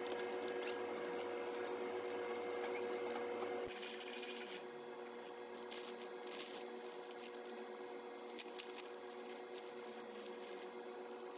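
A paper bakery bag crinkles as it is handled and opened, with a few sharp crackles. Then a pastry in a clear plastic wrapper crinkles in the hand. A steady machine hum runs under the first few seconds and stops abruptly.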